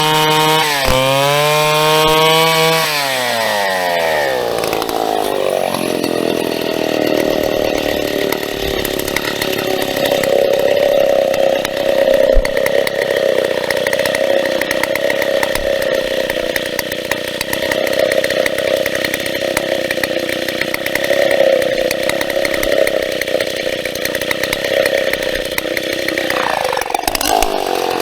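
Big vintage Stihl two-stroke chainsaw running at full throttle. About three seconds in its pitch drops as it bogs into a cut through a birch stem. It runs loaded and lower in pitch through a long cut, and screams back up near the end as the chain comes free.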